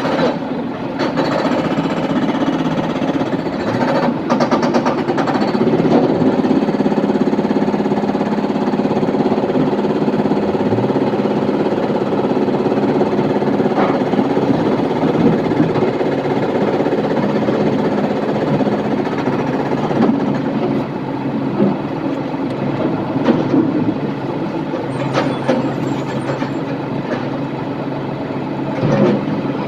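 Heavy diesel machinery running steadily, the excavator and truck engines at work, with a few sharp metallic knocks. The engine note changes about two-thirds of the way through.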